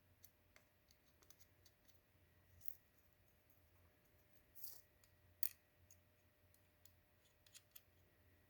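Faint, scattered small metal clicks and taps of little round-headed nuts being handled and started onto the bolts of a chainsaw's bumper spike, the sharpest click about five seconds in.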